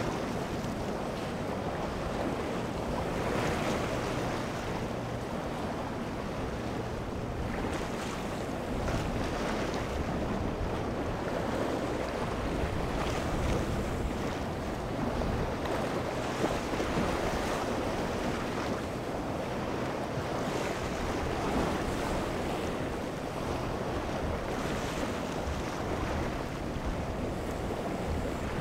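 Wind buffeting the microphone over breaking waves and surf, with the steady hum of boat engines running underneath.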